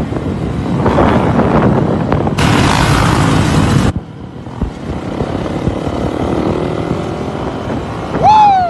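Engine and road noise from a moving vehicle driving beside a motorcycle, with heavy wind buffeting on the microphone that cuts off abruptly about four seconds in. Near the end comes a loud, short, pitched sound that rises and then falls.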